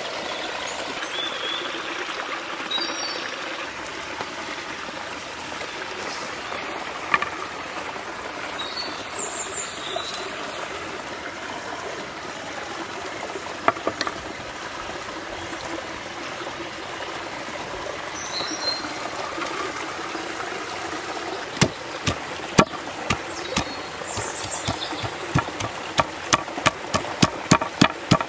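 Forest stream running steadily, with a few short high chirps. In the last several seconds come sharp knocks that grow faster, to about three a second: cooked beef steak being pounded on a wooden board.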